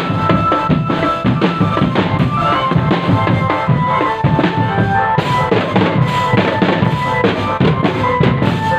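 Marching drum band (drumband) playing: rapid snare and bass drum beats under a melody of held notes.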